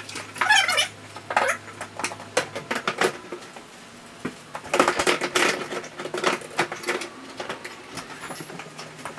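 Black plastic storage box being handled as its hinged lid is worked: a string of irregular clattering knocks and scrapes, busiest about half a second in and again around five seconds in.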